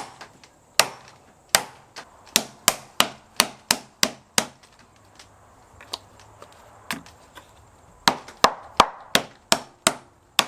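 Claw hammer tapping a tight, thin packing strip down into a crack in a timber butcher's block, giving sharp wooden knocks about three a second. After a run of about a dozen knocks there is a pause of a few seconds with only a few light taps, then another quick run near the end.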